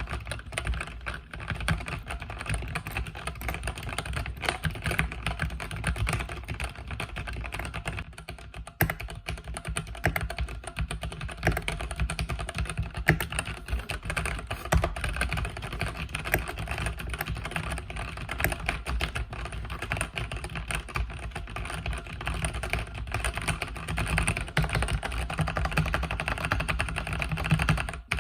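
Continuous fast typing on a mechanical keyboard with red linear switches: a dense run of key clicks and keycap clacks, with a brief lull a little over a quarter of the way through.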